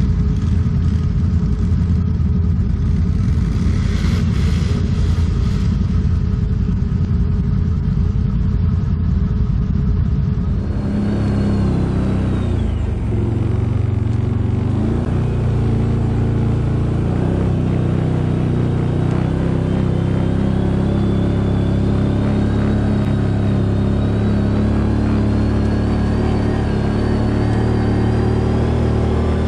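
ATV engine running under load, its pitch rising and falling with the throttle. The sound changes character abruptly about ten seconds in.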